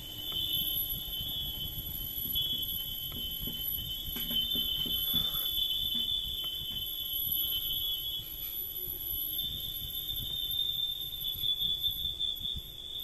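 A continuous high-pitched electronic alarm tone, a single steady pitch held without a break.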